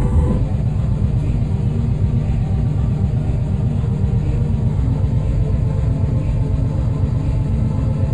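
Live hardcore techno and noise music over a sound system: a heavy, distorted low rumble with a fast, dense pulse, the higher pitched tones dropping out as it begins.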